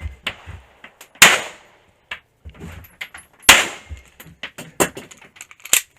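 Pistol shots fired during a timed course of fire: a loud shot about a second in and another at about three and a half seconds, then a quick cluster of sharper cracks near the end, with smaller knocks and clicks in between.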